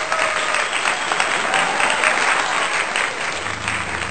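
Applause from a crowd, many hands clapping densely and steadily.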